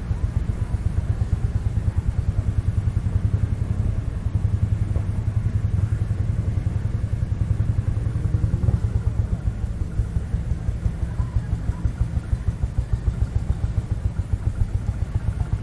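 Vintage tractor engine running steadily, a low, even pulsing beat.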